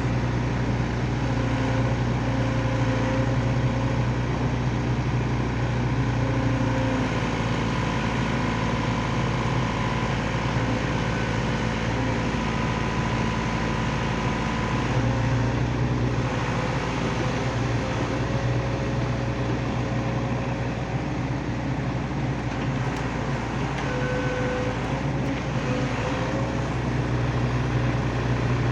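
Excavator's diesel engine running steadily, with hydraulic whining tones that come and go and shift in pitch as the machine works.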